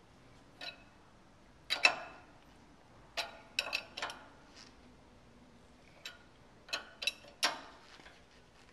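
Steel wrench clicking and clinking on the ball-stud nut of a drag link end as the nut is tightened a bit at a time, with the wrench taken off and refitted between turns. About ten sharp metallic clicks at irregular spacing; the loudest come about two seconds in and near the end.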